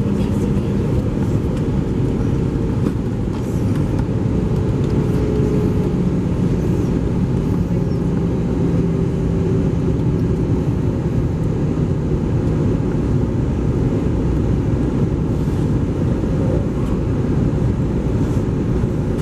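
Airbus A320 cabin noise in flight: a steady low rumble of the jet engines and rushing air, with faint humming tones that sink slightly in pitch partway through.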